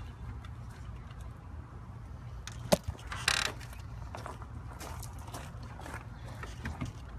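Rattling and clicking of a horse's harness and buggy fittings as the hitched horse is held back, with one sharp knock a little under three seconds in and a short rush of noise just after.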